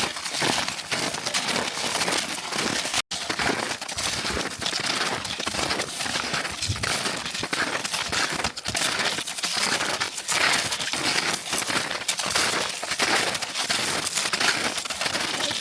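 Footsteps crunching in snow, a continuous crackle of many crisp steps, broken by a sudden, very brief gap about three seconds in.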